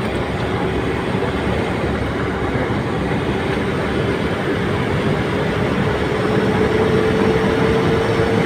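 Hyundai Porter 2's D4CB CRDI turbodiesel running steadily, with the turbo whistling as a thin whine that rises slightly in pitch and grows louder near the end.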